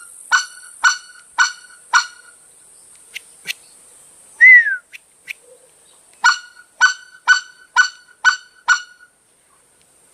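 Short-reed mouth-blown white-fronted goose call sounding clucks (clacking): a run of four sharp, ringing single clucks about half a second apart. A single louder falling note follows a couple of seconds later, then a run of six more clucks.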